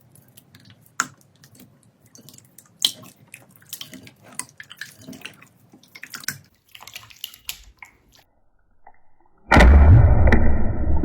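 Slime being squished and poked by hand, making scattered wet clicks and small pops. Near the end a much louder, dense rushing sound with a steady tone in it starts abruptly.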